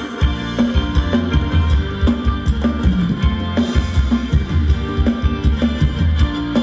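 Live band playing Thai ramwong dance music: a steady drum-kit beat over a strong bass line.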